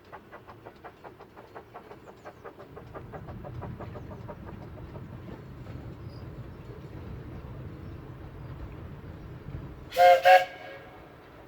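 Hunslet Wren narrow-gauge steam locomotive working a train: quick, even exhaust beats, about four or five a second, fade into the rumble of the train running. Near the end the whistle gives two short blasts.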